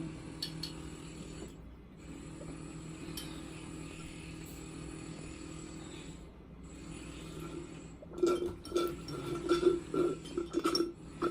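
A woman drinking soda in long pulls without talking: a steady low droning hum from her throat and nose, broken twice by short pauses. About eight seconds in it turns into a louder, choppy run of quick gulping sounds.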